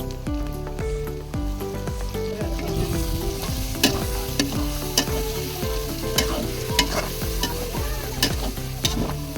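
Chicken frying and sizzling in a cooking pot while being stirred, with a metal spoon clicking against the pot about once a second during the second half.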